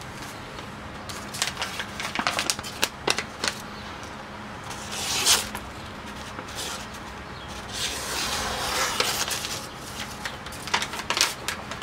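Sheet of newspaper crackling and rustling as it is handled, in irregular sharp crinkles, with two longer swishes about five and nine seconds in.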